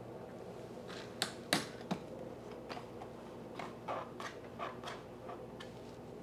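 Small plastic and metal clicks and taps as a lawn-edger engine's plastic air cleaner cover is fitted and its metal wing nut threaded down by hand: three sharper clicks about a second in, then a run of softer ones, over a faint steady hum.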